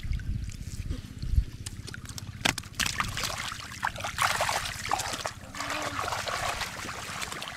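Muddy water splashing and sloshing as hands work through it, with a busier run of splashing from about three to five seconds in.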